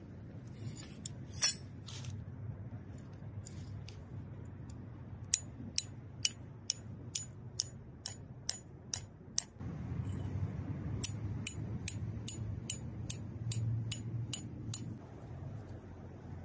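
Metal tent stakes being hammered into the ground: two runs of sharp, ringing taps, about three a second, after a single loud knock near the start. Wind rumbles on the microphone throughout, stronger in the second half.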